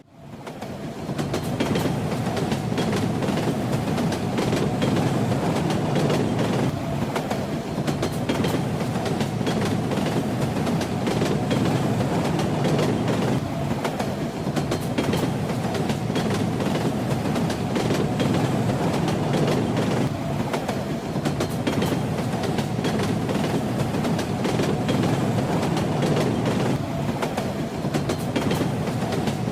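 Railway carriage running along the track: a steady low rumble of wheels on rails with fine clicks and rattles throughout. At the very start the sound dips sharply and swells back within about a second.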